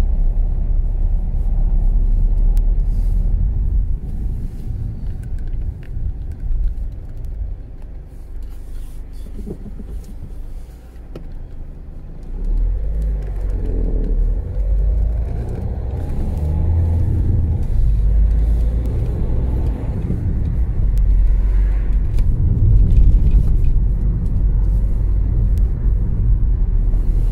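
Car cabin noise while driving: a low engine and road rumble that eases off for several seconds in the middle and builds again as the car picks up speed.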